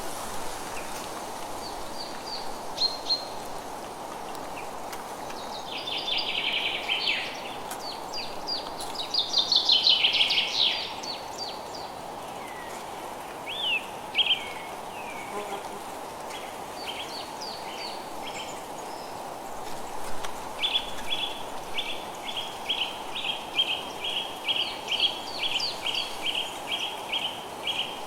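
Birds chirping and singing over a steady hiss of rain; in the last third one bird repeats a short note about twice a second.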